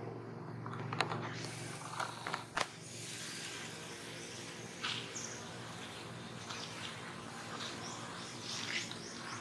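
Dry leaf litter crackling sharply a few times in the first three seconds, then a steady outdoor hiss with a few short bird chirps.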